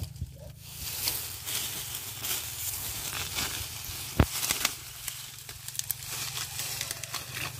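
Rustling and crackling of vegetation being handled while a spring rat trap is set, with scattered small clicks and one sharp click about four seconds in.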